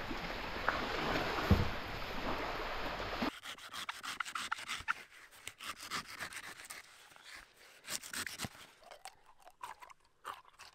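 Steady wind and surf noise for about three seconds, then a large knife blade repeatedly chopping and scraping into the husk of a green coconut: a quick run of sharp cuts and scrapes that thin out toward the end.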